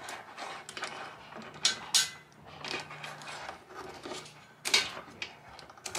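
Scissors snipping through the mesh backing of a mosaic tile sheet, with sharp snips and clacks, two close together about two seconds in and another near the end.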